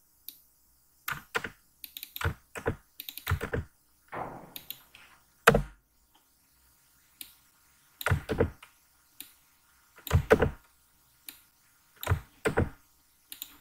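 Computer keyboard keys pressed in short clusters of a few clicks with pauses between, while lines of code are copied and pasted. One single louder knock comes about five and a half seconds in.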